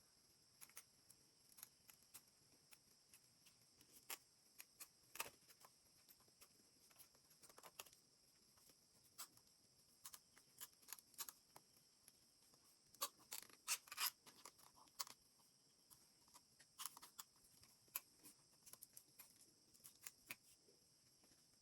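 Faint, scattered small clicks and rustles of hands handling small objects, over a steady hiss, busiest in the middle.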